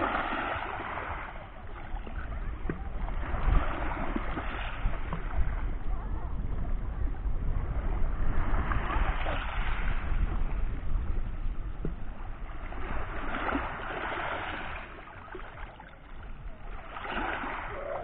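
Small sea waves washing up a pebble beach and draining back through the stones, one swash every four or five seconds.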